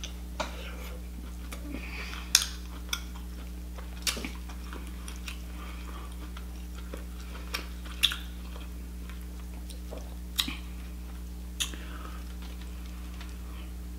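Close-up mouth sounds of eating lobster meat by hand: wet chewing, lip smacks and finger licking, sharp smacks every second or two, over a steady low hum.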